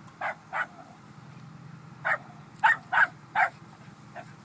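A dog barking: six short barks in two runs, two near the start and four about two seconds in, over a steady low hum.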